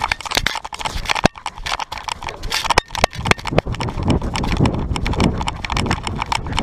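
Rapid, irregular knocks and rattles from a GoPro strapped in a homemade harness on a running Pembroke corgi, the camera jolting with each stride, with rumbling handling noise heavier in the second half.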